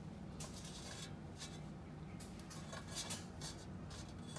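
Soft, scattered rustling and scraping as crumb-coated pickle spears are pressed by hand into an air fryer's perforated basket, over a low steady hum.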